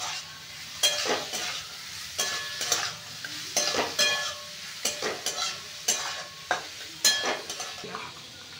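Sliced vegetables (onion, capsicum, cabbage, carrot) stir-frying on low heat in a metal wok: a spatula scrapes and knocks against the pan with a ringing clink about once or twice a second over a soft sizzle. The stirring stops near the end, leaving only the sizzle.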